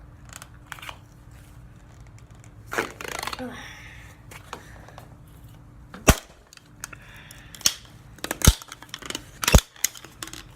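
Plastic toy water gun being pried apart by hand: handling and rustling, then three sharp loud cracks as the plastic parts snap apart, about six, eight and a half and nine and a half seconds in.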